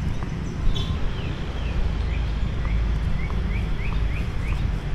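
A small bird chirping repeatedly in short rising notes, two or three a second, over a steady low rumble of wind on the microphone.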